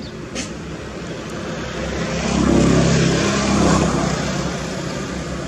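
An engine drones with a low, steady hum. It grows louder to a peak about halfway through, then eases off, as an engine does when it passes by.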